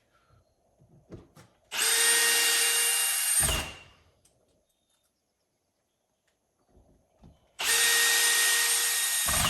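A drill-like power tool run twice in bursts of about two seconds, with a steady whine over a hiss.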